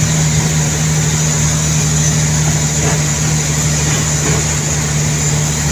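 Steady engine and road noise heard from inside the cabin of a moving vehicle, with a constant low hum.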